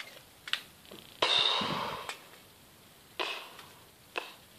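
A breathy exhale like a sigh about a second in, fading out, and a shorter one a little after three seconds, with a few light clicks from a plastic toy pistol being handled.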